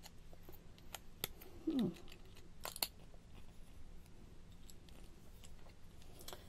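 Scattered small clicks and taps of a fountain pen being handled and worked at, its cap stuck and not opening. A short falling grunt comes about two seconds in.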